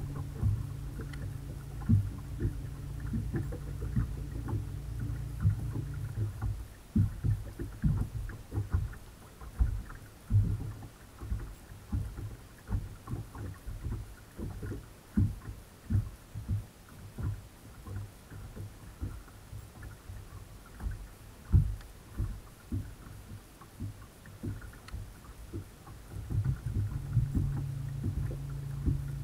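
Bow-mounted electric trolling motor humming steadily, switching off about six seconds in and coming back on near the end. In between, small waves slap against the boat's hull in irregular low knocks.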